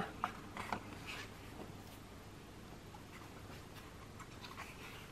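Faint rustling and a few soft clicks of paper as the sheets of a sticker book are handled and turned over, mostly in the first second and again near the end.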